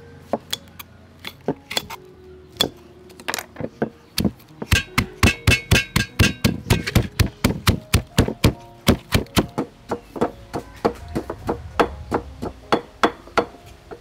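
A pestle pounding chilies and garlic in a stone mortar. After a few scattered knocks it settles, about four and a half seconds in, into quick, steady strokes, several a second, to crush them into a paste.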